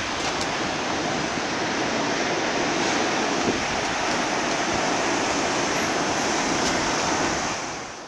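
Steady rushing of wind and sea surf, with wind buffeting the microphone, fading out near the end.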